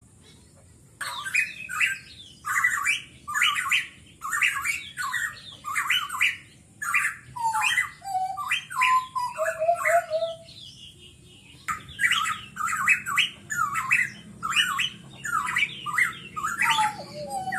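Pitohui calling: a long run of short, harsh calls, about two a second, mixed with a few lower whistled notes, with a short pause near the middle.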